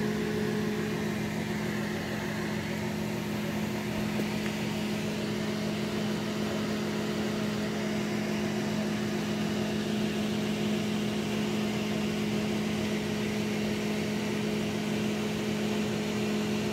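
Electric fan running with a steady hum that does not change.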